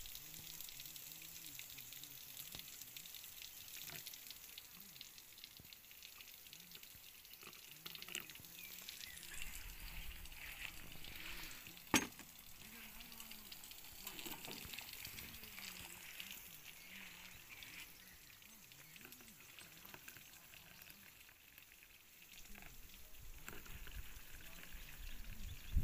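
Faint steady hiss with faint voices in the background and one sharp click about halfway through; near the end, tea is poured from a blue enamel kettle into a plastic camping cup.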